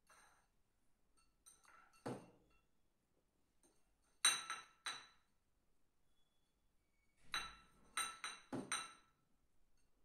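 A small light dish clinking and scraping on a tiled floor as a cat noses and paws it: one clink about 2 s in, two sharp ones just after 4 s, then a quick run of four near the end.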